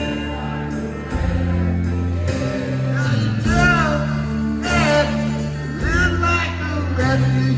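A live rock band playing, with held chords that change about once a second and a singing line over them.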